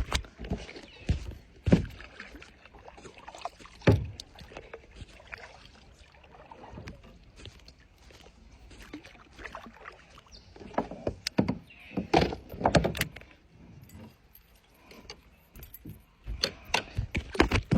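Scattered knocks, clicks and rattles of gear being handled aboard a kayak, with two busier spells of clatter, one past the middle and one near the end.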